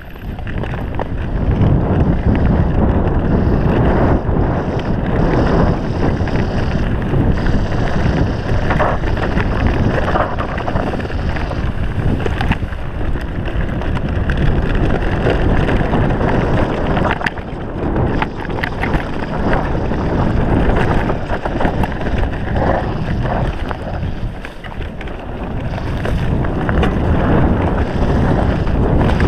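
Wind buffeting the microphone as a mountain bike rolls fast down a dirt trail, with tyre noise and scattered knocks and rattles from the bike over bumps.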